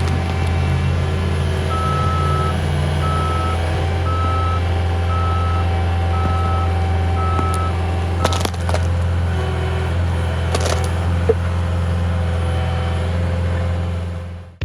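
CAT 259D compact track loader's diesel engine running steadily under load, its reversing alarm beeping six times about a second apart starting about two seconds in. Two sharp knocks come later on.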